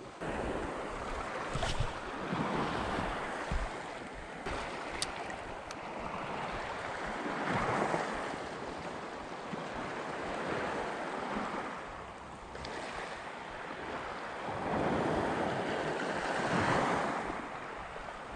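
Small sea waves washing over a pebble shore, swelling and easing every few seconds, with wind on the microphone. A few light clicks in the first few seconds.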